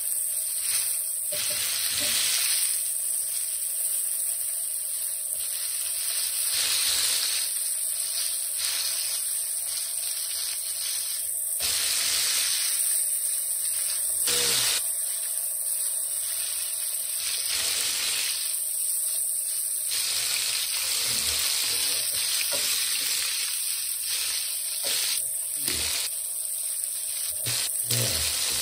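Flour-coated Black Sea gobies frying in a skillet with a steady sizzle. Now and then forks scrape and clink against the fish and pan as the pieces are turned.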